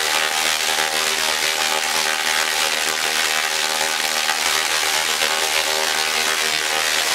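Solid-state Tesla coil, driven by a CM600 IGBT bridge, firing long sparks from its top load into the air: a steady, loud, pitched buzz with a dense crackling hiss over it.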